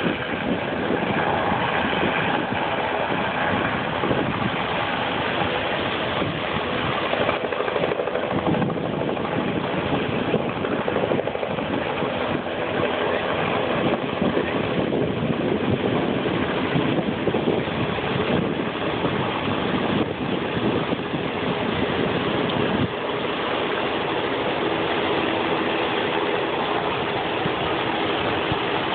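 A helicopter's rotor and engine drone steadily over the rush of surf breaking on rocks.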